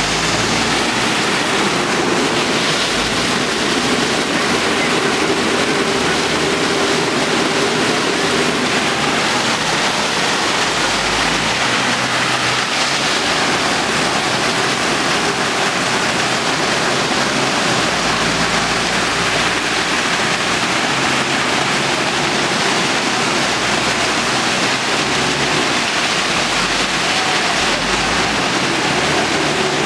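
Steady rushing of muddy floodwater from a flash flood, an even, unbroken roar-like hiss of water with no let-up.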